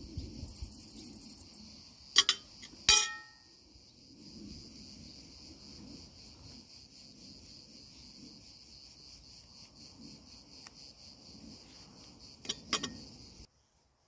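Crickets chirping in a steady, high, pulsing trill. A few sharp knocks come about two and three seconds in and again near the end, one of them ringing briefly like a clink. The chirping cuts off abruptly near the end.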